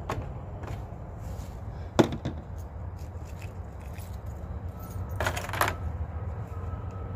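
Camping gear being handled: a sharp knock about two seconds in, a couple of lighter clicks, and a short run of metallic clinks around five seconds, over a steady low rumble.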